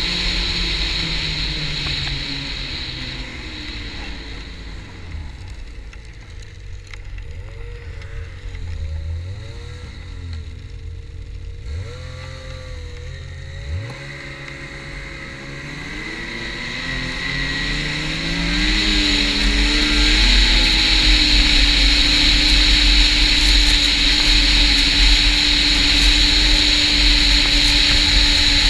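Snowmobile engine under way. It slows, with the pitch falling and running low for several seconds with a couple of short quick revs, then accelerates with a rising pitch and holds a loud, steady high cruise through the last third.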